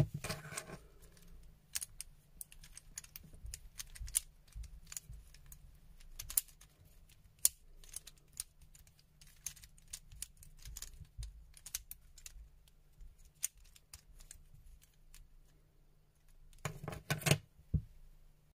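Plastic infinity cube fidget toy being folded and flipped by hand: irregular clicks and clacks as its hinged blocks snap together. A louder burst of clacks comes near the end.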